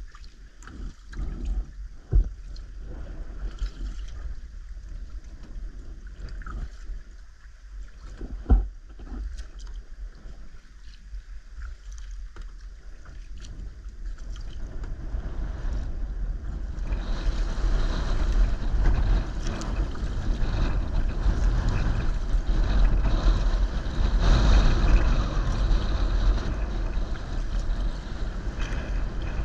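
Sea kayak being paddled: water splashing and lapping at the hull, with two sharp knocks in the first half. From just past halfway, wind rumbling on the microphone and choppy water against the hull grow louder and stay loud.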